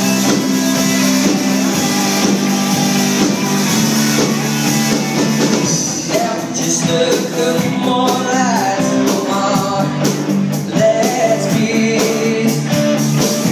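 Live rock band playing a song: drums, electric bass and guitar, with a male singer's voice coming in about six seconds in.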